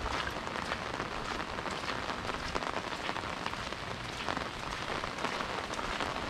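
Steady rain falling, a continuous hiss with many individual drops ticking sharply through it.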